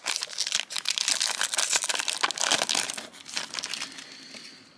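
Foil wrapper of a Fleer basketball card pack being torn open and crinkled, a dense crackling that dies down about three seconds in.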